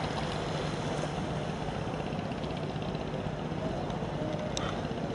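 Steady low hum of ship engines in a harbour under an even wash of wind-like noise, with one brief click near the end.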